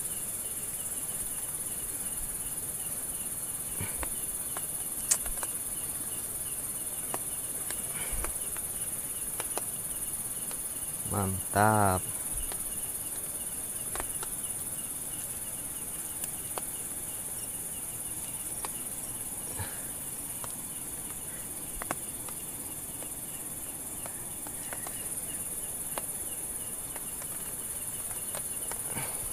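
Steady, high-pitched chorus of night insects, crickets among them, with a faint, rapidly repeating chirp beneath it. Scattered small clicks and taps come through now and then.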